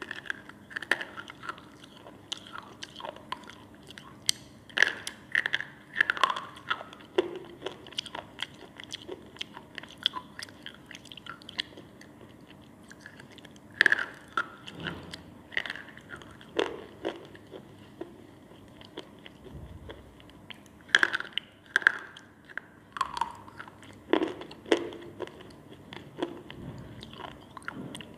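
A Balak chaap slate pencil being bitten and chewed: crunchy, sharp snaps and cracks come in irregular bunches, with quieter chewing in between.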